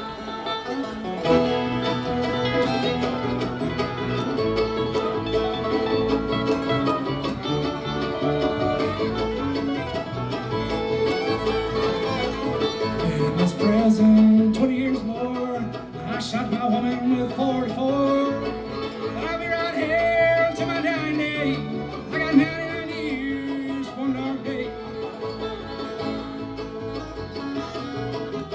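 Live bluegrass band playing an instrumental tune on acoustic string instruments.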